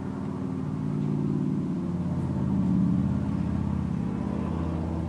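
A motor vehicle engine running with a low steady hum, building to its loudest about three seconds in and then easing off, like a vehicle passing.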